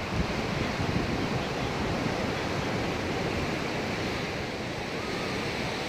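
Steady sea surf on the shore, with wind rumbling on the microphone.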